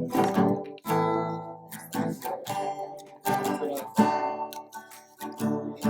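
Acoustic guitar being strummed loosely, chords struck every second or so with short gaps between them, like someone playing idly while tuning up.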